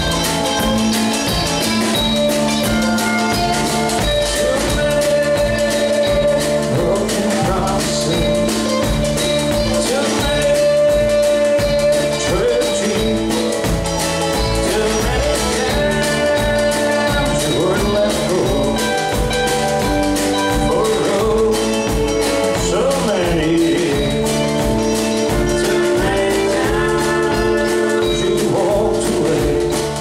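Live country band playing with a steady beat: acoustic guitar, electric bass, drum kit and washboard, with sliding pedal steel lines.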